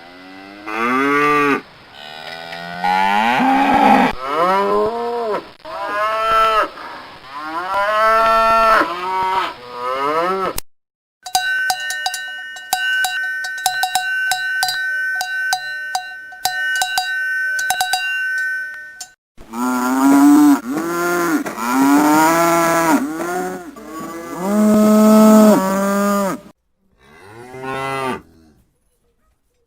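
Domestic cattle mooing, one long pitched call after another, for about ten seconds. A cowbell then clanks for about eight seconds, followed by more mooing and a last short moo near the end.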